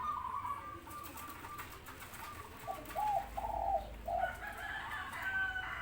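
Zebra doves (perkutut) and spotted doves (derkuku) cooing back and forth, call after call overlapping. Higher notes come first, lower hooked coos follow about halfway through, and higher notes return near the end.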